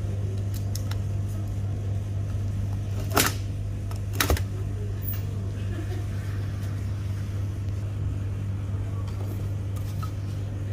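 A steady low hum, with two sharp clicks about three and four seconds in, the second a quick double, as the bearing and its retaining ring on a printer fuser heat roller are handled.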